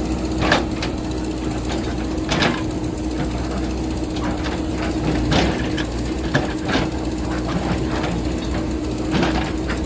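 A JCB backhoe loader's diesel engine running steadily, with several irregular sharp knocks and clanks as the bucket works rocky ground.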